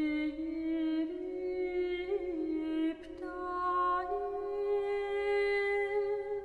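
Background music: slow, long held notes that step gradually upward over a steady drone tone, with a short break about three seconds in.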